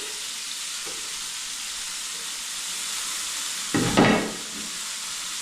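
Swiss chard and mushrooms frying in butter and oil in a pan, a steady sizzle. A brief louder sound comes about four seconds in.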